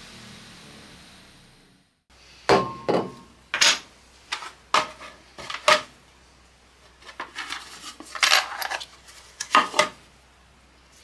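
A bench polishing machine's motor running down after being switched off, fading out within the first two seconds. Then a small metal badge clinks and taps against the wooden workbench a dozen or so times as it is set down and handled.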